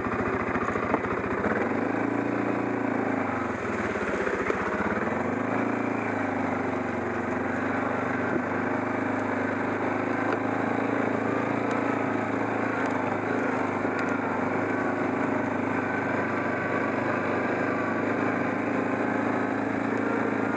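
CFMoto 500 quad's single-cylinder four-stroke engine running as the quad is ridden. Its pitch rises and falls twice in the first few seconds, then holds steady.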